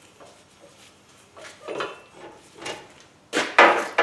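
Steel chain and clamp of a screw-type body puller clanking and rattling as the pulling tension is released after straightening a frame rail. A few short clatters, with the loudest burst of rattling near the end.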